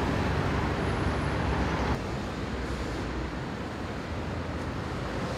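City road traffic: a steady rumble of buses and cars passing, dropping a little in level about two seconds in.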